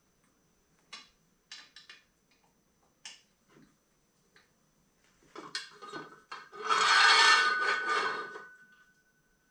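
Metal parts of a bench-grinder pedestal stand, its steel tube and cast iron base, being handled: a few light clicks, then a loud metal-on-metal scrape lasting about two seconds, leaving a faint ringing tone.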